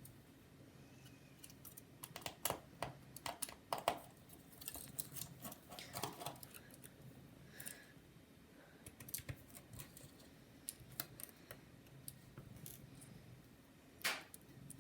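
Irregular small clicks and taps of a precision screwdriver and small screws being handled against a laptop's casing and parts, with a louder tap near the end.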